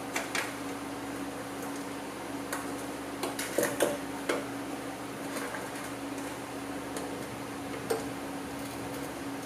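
Scattered clicks and knocks of pliers and hands working the plastic tabs and rubber top cover of a pickup's rear bumper, loudest in a short cluster a few seconds in, over a steady background hum.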